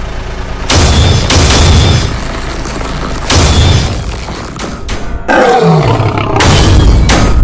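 Dubbed monster roars and screeches with heavy booming hits, coming in several loud bursts; one cry slides down in pitch about five and a half seconds in.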